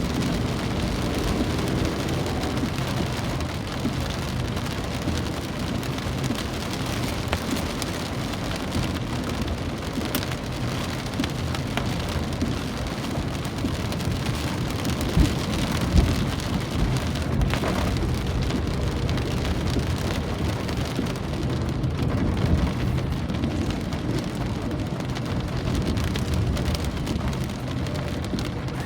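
Steady rain falling on a surface, a dense even patter of drops with a few louder drop hits about halfway through.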